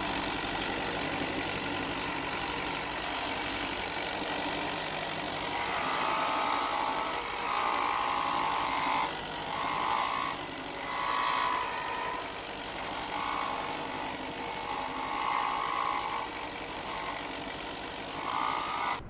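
Ryobi 4" x 36" belt and disc sander running, with a small wooden part pressed against the spinning sanding disc. From about five seconds in, the sanding grows louder and grittier in repeated short passes, each time the wood is pushed onto the disc.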